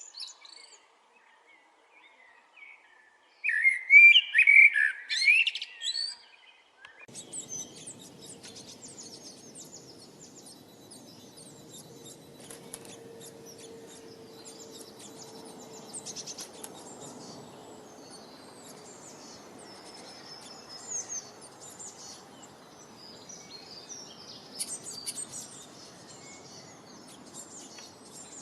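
Birds calling and chirping: a loud burst of calls a few seconds in, then many small, high-pitched chirps over a steady background hiss.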